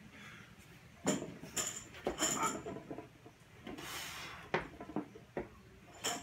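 Barbell with bumper plates being power cleaned: a quick run of metallic clinks and rattles as the bar is pulled from the floor and caught in the front rack, followed by a few more single clinks while it is held.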